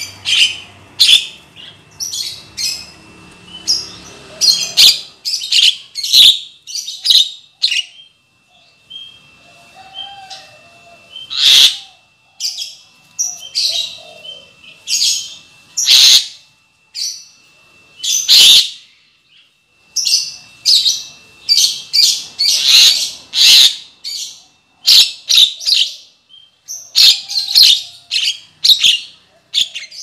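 Javan myna calls from a bird-trapping lure recording: a fast, uneven string of short harsh chirps and whistles, with a few louder harsh calls in the middle.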